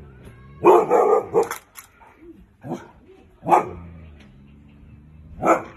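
Husky barking: a quick run of barks about a second in, then single barks spaced a second or two apart.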